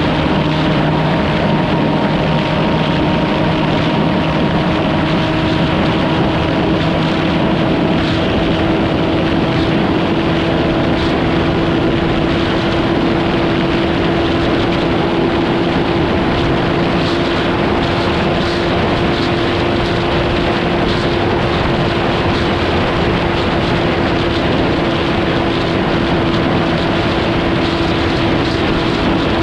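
A vehicle's engine running at a steady, unchanging speed: a constant droning hum over an even rushing noise, with no revving or passing.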